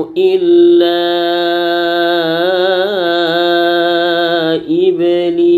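Qur'an recitation: a male reciter chants the word 'illā', drawing its vowel out into one long melodic note with small turns in pitch. The note breaks off briefly about four and a half seconds in, then the voice comes back on the same pitch.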